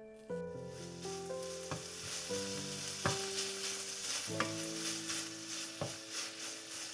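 Food sizzling in a frying pan, steady from just after the start, with a few sharp clicks, over gentle background music with a slow melody.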